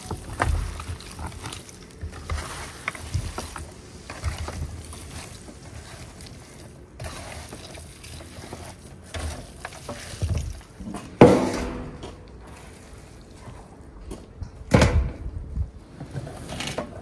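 Chunks of raw wild boar meat being mixed and kneaded by hand with salt, red pepper, onion and apple: irregular wet squelching and rustling, with two louder bumps about eleven and fifteen seconds in.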